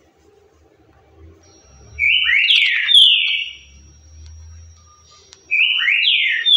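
Green-winged saltator (trinca-ferro) singing its 'currucutil' song type. Two loud whistled phrases, the first about two seconds in and the second about five and a half seconds in, each a quick run of rising notes that ends in a falling slur.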